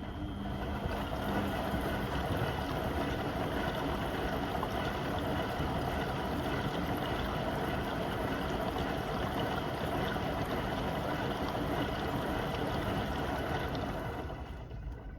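Beko WM74135 washing machine running with a steady rushing, water-like noise that starts near the beginning and fades near the end.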